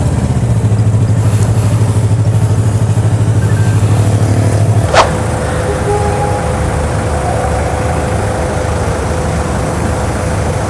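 A motorcycle engine idling with an even, pulsing beat. About halfway through, a single sharp sound sweeps quickly down in pitch. After it the engine sound drops and a steady mid-pitched tone holds.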